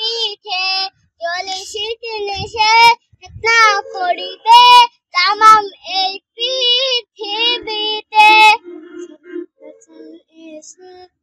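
A young girl sings a Bengali Islamic gojol (ghazal) solo, with no accompaniment and in a slightly shaky voice, holding long wavering notes. Her singing breaks off about three-quarters of the way through, leaving only faint scattered sounds.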